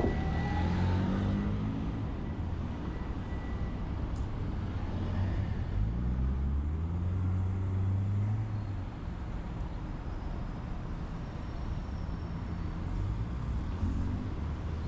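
Road traffic going past as a steady low rumble, with vehicle engines rising in pitch as they speed up near the start and again about five to nine seconds in.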